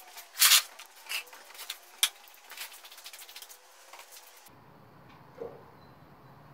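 Plastic sheet crinkling and rustling in sharp bursts, loudest about half a second in, with a sharp click about two seconds in. After about four and a half seconds it gives way to a low steady hum and a soft knock.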